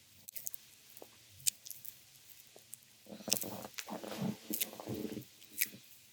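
Oiled hands massaging a bare belly, with small wet squelching clicks of skin, and her stomach gurgling for about two seconds from roughly halfway through.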